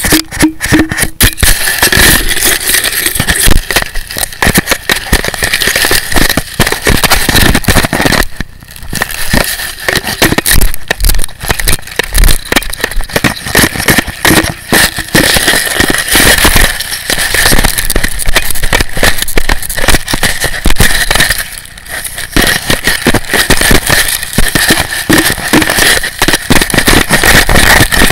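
A dog chewing on a video camera with its mouth around it: a loud, dense crackling and clattering of teeth and jaws working on the camera body right at the microphone, with brief lulls. A thin steady whine sounds underneath.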